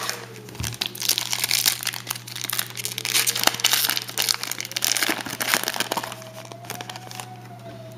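The shiny wrapper of a football trading-card pack crinkles loudly as it is handled and torn open by hand. The crackling runs for about five seconds, then dies down.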